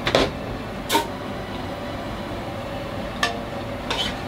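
A whole chicken going into a stainless pressure-cooker pot of hot sake, ginger and sesame oil over a steady sizzling hiss, with four short knocks as the bird and a wooden spatula strike the pot.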